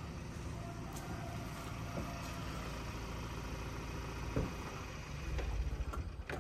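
Engine of a parked light truck idling steadily, with a louder low rumble about five seconds in.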